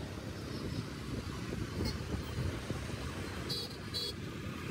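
Road noise heard from a moving vehicle in city traffic: a steady low rumble of engines and tyres, with two short high chirps near the end.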